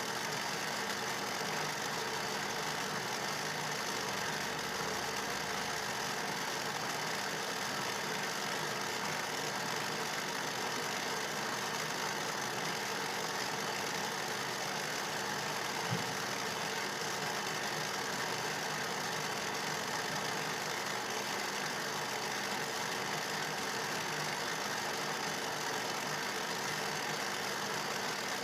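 Electric hand mixer running steadily, beating wet cake batter of eggs, sugar, oil, milk and lemon, with one brief click about halfway through.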